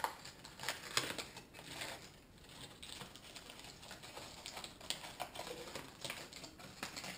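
Aluminium foil crinkling and crackling as a foil packet is pulled open by hand, in irregular clicks and rustles.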